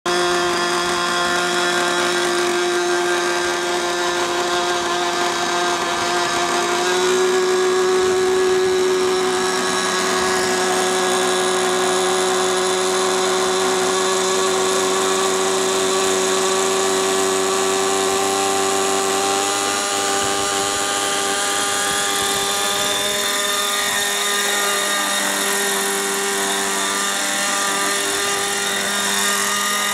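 Radio-controlled MD500 scale helicopter running with its small glow-fuel engine and rotor, a steady high whine. The pitch steps up slightly about seven seconds in and creeps higher over the last third as it spools up.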